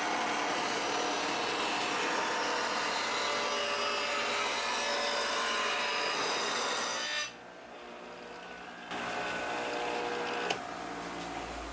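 Power saw running and cutting wood, cutting the rabbet along the top edge of a beehive box end piece so the frames can rest inside. One long cut ends about seven seconds in, and after a short lull a second pass starts, with a sharp click near the end.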